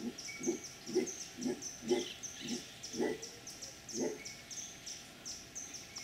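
Howler monkey giving a series of low, rhythmic grunts, about two a second, that stop about four seconds in. A high, repeated chirping runs behind them.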